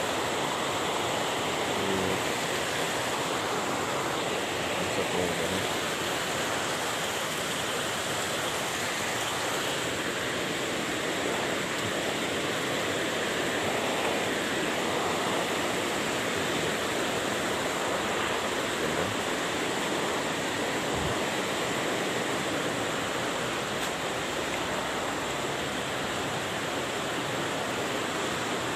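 River rapids rushing over boulders: a steady, even rush of water.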